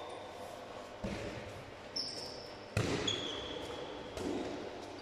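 A handball thudding as it bounces and is caught during play, four separate thuds about a second apart, the third the loudest, with sports shoes giving short high squeaks on the court floor, all echoing in a large hall.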